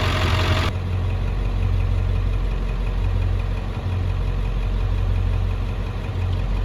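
Ford 7.3 L Power Stroke turbo-diesel V8 idling with a steady low drone; a higher hiss over it stops abruptly under a second in.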